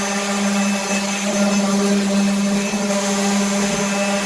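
Electric sander running steadily as it sands a polyurethane floor finish, a loud motor hum with an even hiss.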